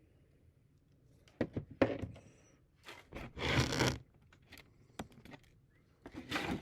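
Small clicks and scrapes of a lighter being handled and worked, with two short rasping bursts, the longer one about three and a half seconds in and another near the end.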